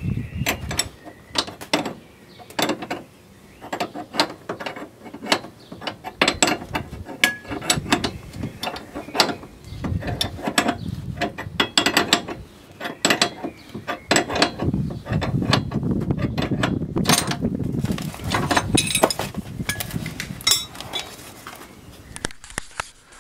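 Hand ratchet wrench clicking in irregular runs of short strokes as it is worked back and forth on a threaded fastener, with light metal knocks from tool and parts. It stops shortly before the end.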